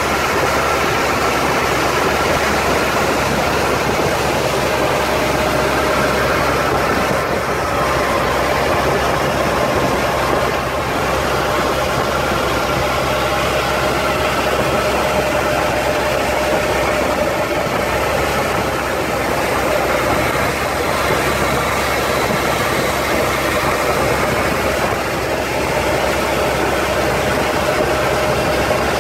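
Boat engine running steadily under way, with water rushing past the hull.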